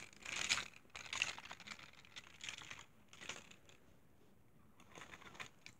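Faint clicks and light rattles of plastic toy trains being handled by hand and moved on carpet, a patter of small knocks for the first few seconds and a few more near the end.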